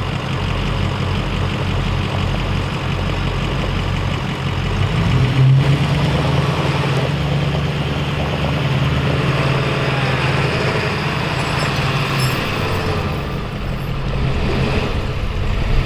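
Heavy truck engine running, revving harder for several seconds midway and then easing off, as a vehicle strains to get out of slick mud.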